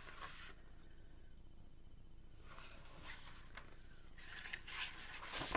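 Paper rustling as a page of a picture book is turned and smoothed down by hand, in a few short rustles with the loudest near the end.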